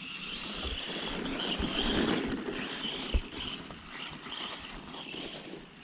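Arrma Senton RC truck's electric motor and drivetrain whining as it drives over snow, swelling and easing again and again with the throttle, with a short knock about three seconds in.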